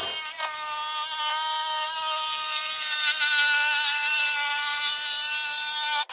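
Cordless jigsaw cutting through plywood, a steady high-pitched motor whine. It stops for a moment near the end and starts again.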